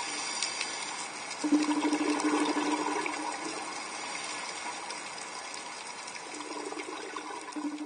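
Rushing, bubbling water, with a low steady hum that comes and goes.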